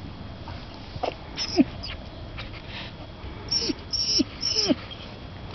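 A pet animal gives short calls that each slide down in pitch: two about a second in, then three in quick succession in the second half, with faint high chirps alongside.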